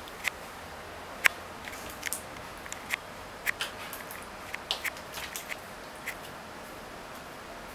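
Rosy-faced lovebird bathing on a plastic cage tray: a string of short, sharp, irregular ticks and taps as it rolls on the tray and flutters its wings, the loudest a little over a second in.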